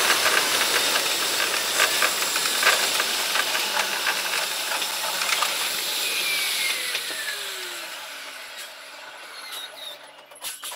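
Electric commuter train running on rails, sped up fivefold into a fast, high hiss of wheel and track noise. It fades as the train brakes to a stop at a station, with a falling whine as it slows and a few sharp clicks near the end.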